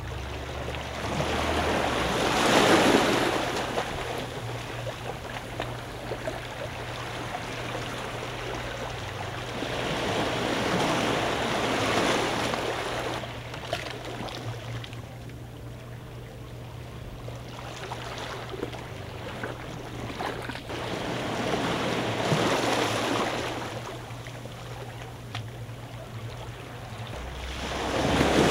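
Small waves washing over shallow rock ledges and reef at the water's edge, swelling and fading in long surges about every ten seconds. A steady low hum runs underneath and stops near the end.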